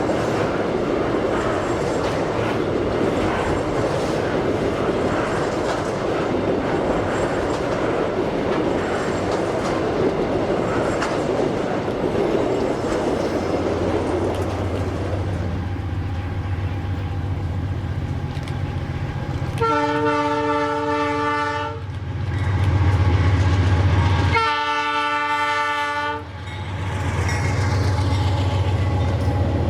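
Freight train wagons rolling past with a clickety-clack of wheels over rail joints, then the low steady drone of a diesel locomotive's engine comes in. The locomotive's horn sounds two blasts of about two seconds each, a few seconds apart.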